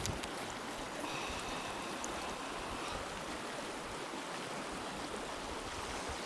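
Steady rush of the Rio Grande's current flowing past.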